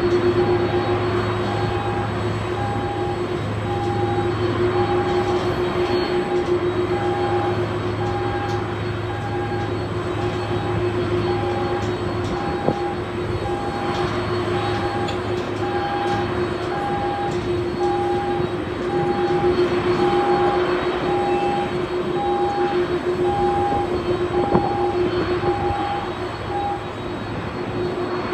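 Boeing 767-300 airliner giving a steady jet whine as it is pushed back, over a low hum. A warning beep from the pushback tug repeats about once a second and stops shortly before the end.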